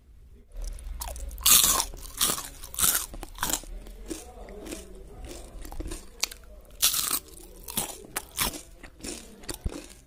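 Someone biting into and chewing a crispy fried potato stick: two loud crunching bites, about a second and a half in and about seven seconds in, with smaller irregular chewing crunches between and after.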